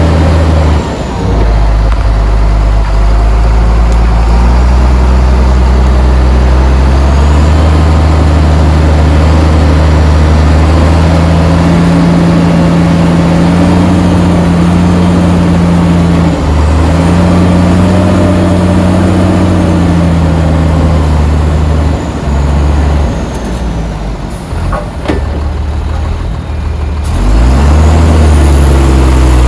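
Heavy diesel engine of earthmoving machinery running loud and working under load, its pitch rising and falling as it revs up and eases off. It drops back for a few seconds a little past two-thirds through, then revs up hard again near the end.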